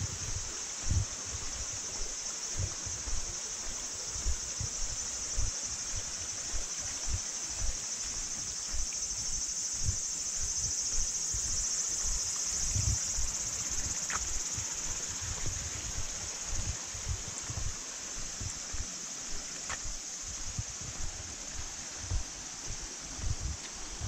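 A steady high-pitched chorus of summer insects shrilling in the forest, a little louder midway. Low soft thuds of the walker's footsteps on the path come through underneath, one or two a second.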